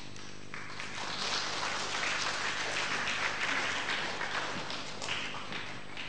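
Audience applause, swelling about a second in and dying away near the end.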